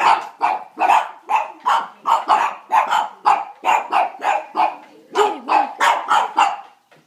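Pekingese dogs barking in rapid, repeated barks, about three a second: alarmed barking at a keg that scares them.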